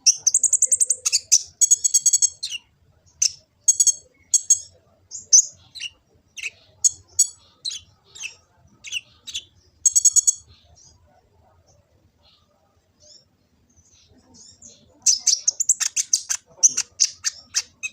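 Kolibri ninja (a sunbird) singing: quick, high, sharp chirps mixed with short buzzy trills. It pauses for a few seconds after about ten seconds, then a fast run of chirps resumes.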